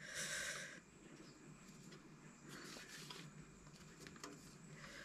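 Faint rasping of cheese being grated on a metal box grater, in a few short scrapes with some light ticks and knocks.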